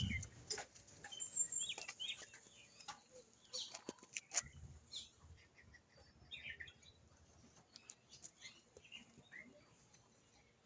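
Faint, scattered bird calls and chirps, with a few sharp clicks.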